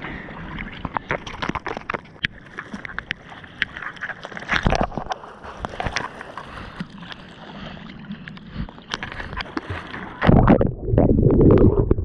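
Seawater splashing and lapping against a surfboard-mounted camera as the surfer paddles, with many small splashes and drips. About ten seconds in, a loud rush of moving water and wind on the microphone sets in as the board is caught by a wave.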